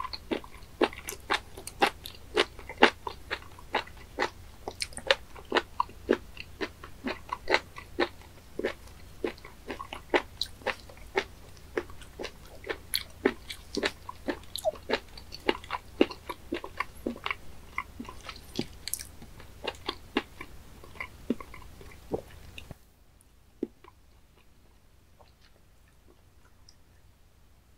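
Close-miked chewing of raw spoon worm sashimi: a rapid run of wet, crunchy clicks, about three a second. About 23 seconds in it cuts off to a faint quiet.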